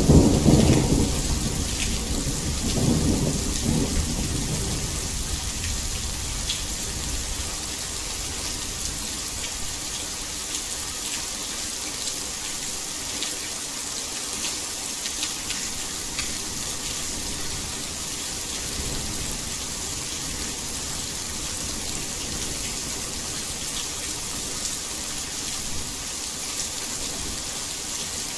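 Heavy rain falling steadily, with a low rumble of thunder in the first few seconds that dies away, leaving an even hiss of rain with scattered drops ticking through it.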